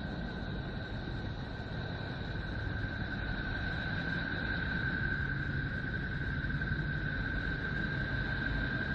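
A 'sound of Neptune' drone made from Voyager spacecraft data: a steady rumbling hiss with a steady high whistling tone held above it, slowly swelling a little louder.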